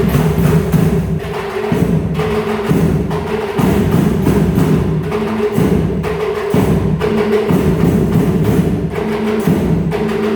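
Percussion band playing: drums and a sharp, regular tapping beat over sustained pitched notes that change about once a second.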